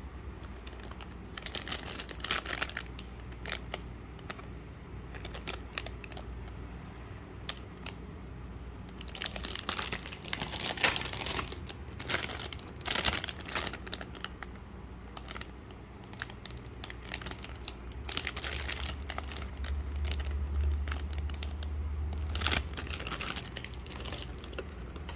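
Packaging from a Gundam model kit crinkling and rustling as it is handled, in irregular bursts with sharp crackles and clicks, loudest about ten seconds in.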